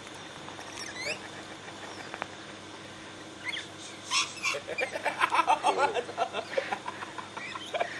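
Wild parrots, rosellas and lorikeets, chattering and squawking. The calls are scattered at first, then from about halfway they become a loud, dense burst of rapid, high screeches.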